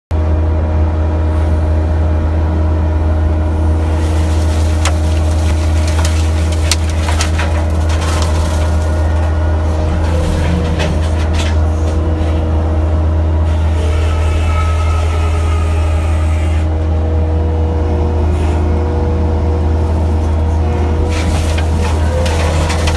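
Kubota skid steer's diesel engine running steadily at constant speed, driving a brush cutter attachment, with sharp cracks and snaps here and there as brush is cut.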